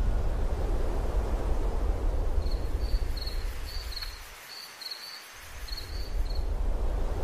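Crickets chirping in short, quick, repeated chirps over a low, steady rumbling ambience. The rumble drops away for about a second past the middle, then comes back.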